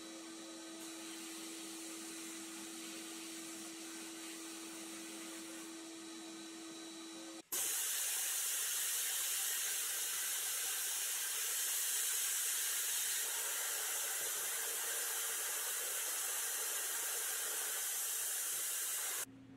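A blast cabinet running with a steady hum and hiss. After about seven seconds it cuts off abruptly and is replaced by the louder, steady hiss of paint being sprayed onto small toy parts, which stops suddenly near the end.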